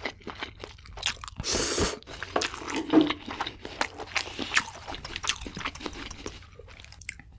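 Close-miked mukbang eating sounds: a loud slurp of noodles about a second and a half in, then chewing with many small, wet, crunchy clicks and smacks.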